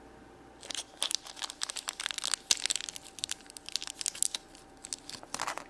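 Plastic toy packaging crinkling as it is handled and opened, in irregular crackles from about half a second in until near the end.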